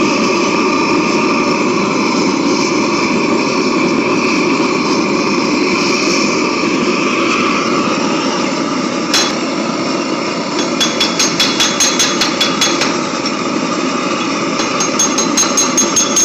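A hammer striking metal in quick runs of light, ringing blows, about seven a second, after a single strike about nine seconds in. A steady rushing noise runs underneath.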